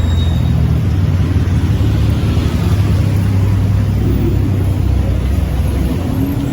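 A motor vehicle's engine running close by: a loud, steady low rumble with light street noise above it.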